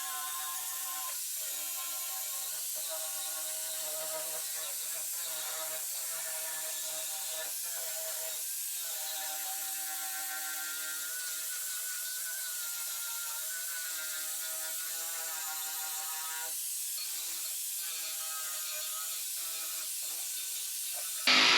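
Eastwood electric contour tool running steadily, a whine with a hiss over it as it strips undercoating off sheet metal. Its pitch shifts abruptly every few seconds, and a much louder burst of tool noise cuts in right at the end.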